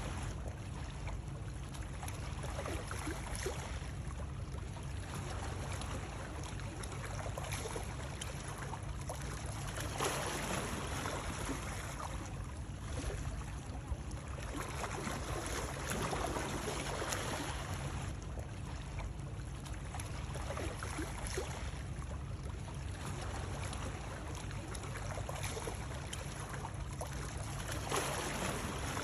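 Continuous rushing water noise with a low rumble underneath, swelling a little louder every several seconds.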